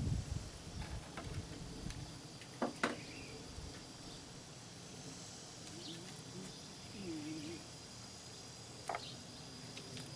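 Steady high insect chirring in the background, with a low rumble in the first two seconds and a few sharp clicks from tools being handled on a wooden workbench, about three seconds in and again near the end.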